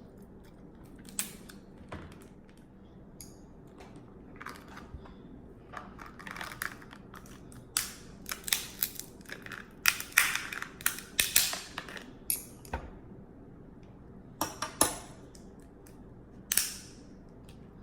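Snow crab legs being cracked open and eaten close to the microphone: irregular sharp cracks and crunches of shell with wet mouth smacking. The sounds are sparse at first, come thick and fast from about a third of the way in to two thirds, then trail off to a few last cracks.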